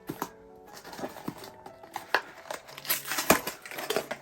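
Packaging being handled and opened by hand: irregular crinkling and sharp clicks, the loudest about three seconds in.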